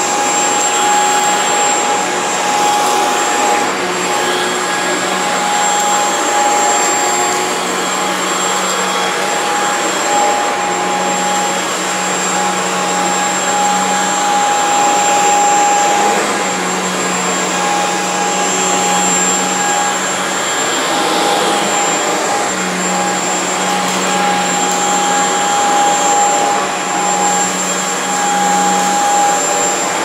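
Shark Stratos corded stick vacuum running on carpet while it is pushed back and forth, a steady motor whine over rushing air. A lower hum swells and fades every couple of seconds.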